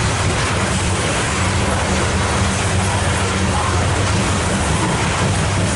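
Loaded coal hopper cars of a freight train rolling past, their steel wheels on the rails making a steady deep rumble.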